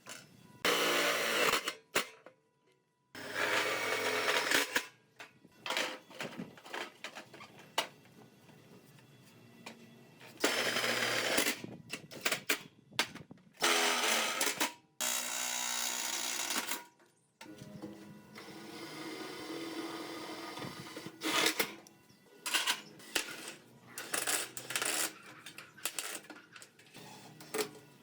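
Intermittent workshop sounds: repeated bursts of mechanical noise a second or two long, with a steadier run of a few seconds after the middle and short metallic clinks in between.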